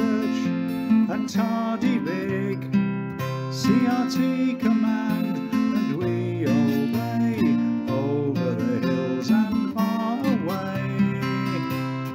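Acoustic guitar music, strummed chords under a melody line that slides up and down in pitch.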